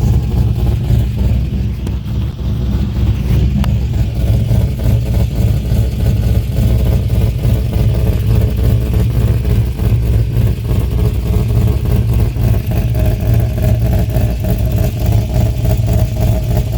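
LS-family V8 idling through a freshly fitted Flowmaster Super HP-2 muffler, a steady, uneven rumble with a bubbling from the exhaust. The bubbling comes from a leak at the muffler's clamped joint, where the pipe was overtightened or too short to clamp onto.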